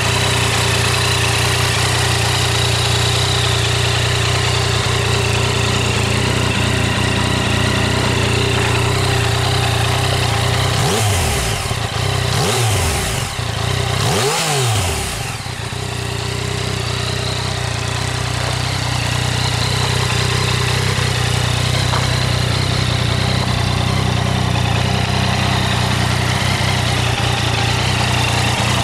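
Yamaha MT-09 Tracer's 847 cc three-cylinder engine idling steadily through its stock exhaust, blipped three times in quick succession about midway, each rev rising and falling back to idle.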